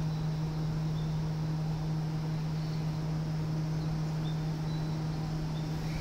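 Steady low electrical hum from a stationary electric commuter train idling at the platform, with faint short high chirps now and then.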